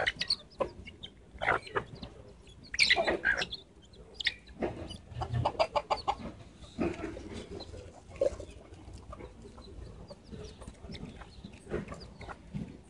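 Chickens clucking in short, scattered calls while pecking rice from a hand, with a louder cluster about three seconds in and a quick run of short clucks a couple of seconds later.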